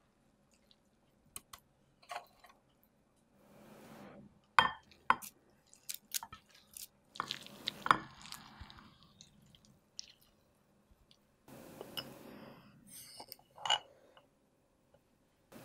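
Wet, squishy handling sounds with scattered sharp clicks: grated raw potato shreds dropped into beaten eggs in a ceramic bowl. Later a metal spoon scoops salt from a ceramic pot with a clink.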